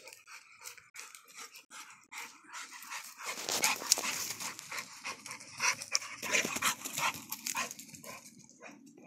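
A mastiff-type dog panting hard in quick, rhythmic breaths, louder from about three seconds in as it passes close, with scuffing and rustling underneath.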